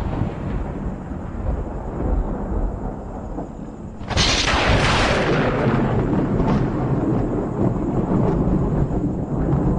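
Thunder: a low rumble dying away, then about four seconds in a sudden sharp crack of a close thunderclap that rolls on as a long rumble.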